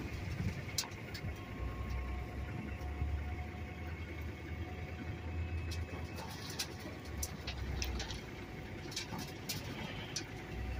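Dump trailer's electric-hydraulic pump running with a steady whine as the loaded bed tips up to dump broken concrete. Under it, a low rumble from about a second and a half in to about eight seconds, and scattered light clicks.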